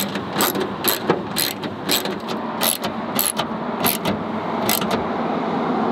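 Ratchet wrench clicking in repeated strokes, about two a second, tightening the nuts on a rear wing's mounting studs from under a car's trunk lid.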